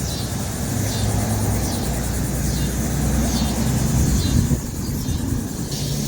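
A motor vehicle's engine running close by, its low rumble building and then easing off about four and a half seconds in. Over it, a bird repeats a short, high, falling chirp.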